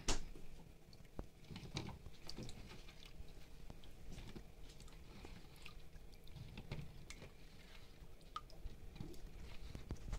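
Wet peeled potato chunks being lifted out of a basin of water and dropped into a plastic colander: faint, irregular soft knocks and wet clatter, the loudest knock right at the start.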